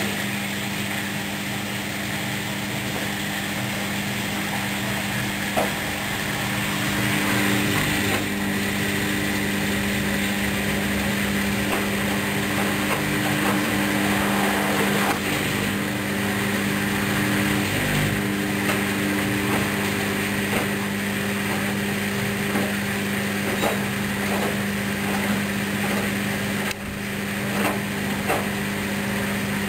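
Hoover washing machine running a rinse of its wool cycle: a steady motor hum under a constant wash of noise, with a few short light knocks.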